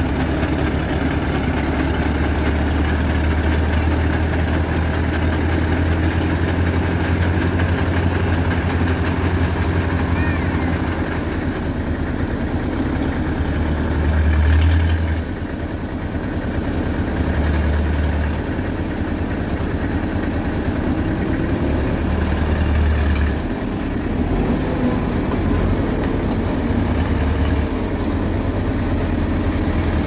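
Small dump truck's engine running steadily while its hoist raises the loaded bed to tip out soil, the engine note swelling louder a few times.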